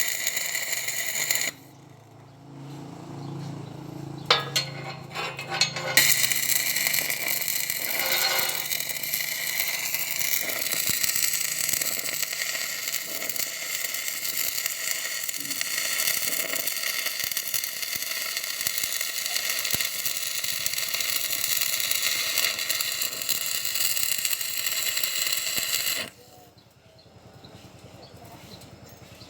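Homemade wood-cutting circular saw running steadily with a high whine. It stops about a second and a half in, with a low hum and a few clicks in the lull, starts again about six seconds in, and cuts off suddenly near the end.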